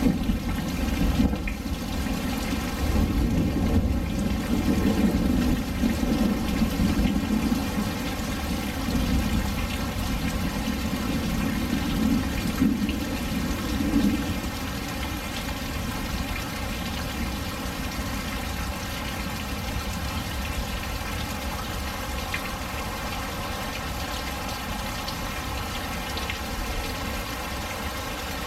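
Thunderstorm: steady rain with a long low rumble of thunder that rolls on through about the first half and dies away, leaving only the rain.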